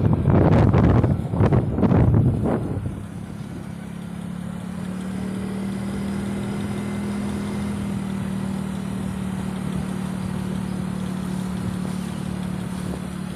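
Motorcycle engine running at a steady cruising speed with a constant hum. Wind buffets the microphone loudly for the first two or three seconds, then drops away.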